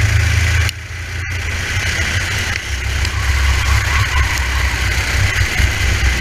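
Racing kart engine heard through an onboard helmet camera, with wind noise. The engine drops off sharply less than a second in as the throttle is lifted, then builds back steadily as the kart accelerates again.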